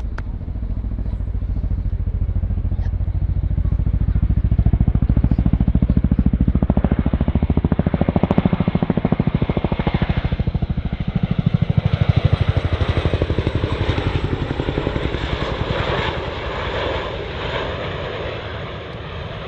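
RAF Boeing Chinook tandem-rotor helicopter flying its display, its rotors giving a fast, even thudding blade slap over the turbine rumble. It grows louder over the first few seconds and eases a little near the end.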